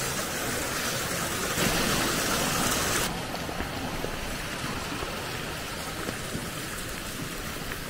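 Steady outdoor rushing noise with no distinct events. The high hiss drops off suddenly about three seconds in, and a quieter steady rush continues.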